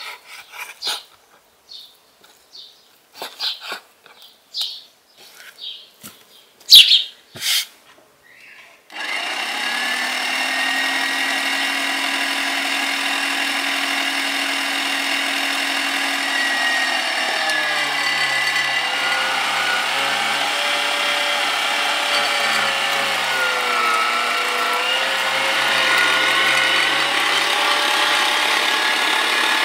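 Knife cutting beef on a wooden board in sparse sharp taps, then about nine seconds in an electric meat grinder switches on and runs steadily, its pitch dipping briefly a couple of times as beef is pushed through.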